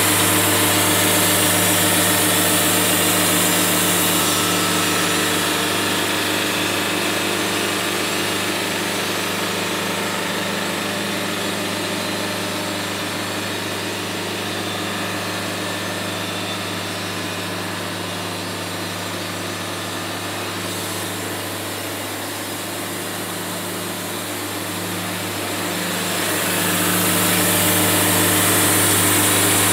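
Wood-Mizer LT70 band sawmill running, its engine holding a steady note while the band blade cuts through an oak cant. It is louder with more hiss at the start and again near the end, and a little quieter in between.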